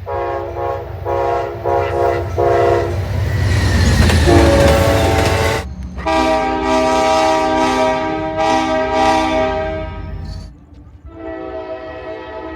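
Locomotive multi-chime air horns sounding chords in quick succession. First comes a rapid string of short blasts, then a loud train rumble under a lower horn. A long, loud horn sequence follows and cuts off abruptly, and another horn chord starts near the end.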